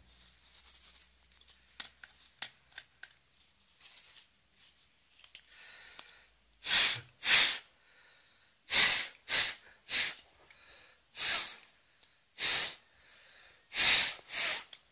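Sharp puffs of breath blown into an opened laptop to clear out dust: about nine short blasts, starting a little under halfway in. Before them, faint rustling and light clicks of tissue wiping the parts.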